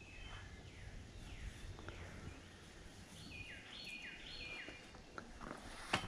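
Faint outdoor ambience with a bird calling a short run of about four falling notes around the middle, with fainter falling calls earlier, and a single sharp click near the end.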